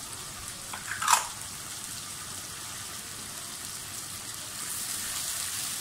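Water boiling with browned onions and whole spices in a frying pan, a steady bubbling hiss that grows a little louder near the end. A brief sharp knock about a second in.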